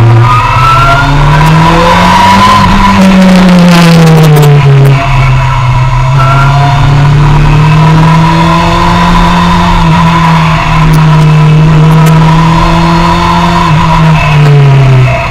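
Suzuki sportbike engine running hard on a race track in second gear. The revs climb over the first couple of seconds, ease off around four seconds in, hold steady, and drop near the end.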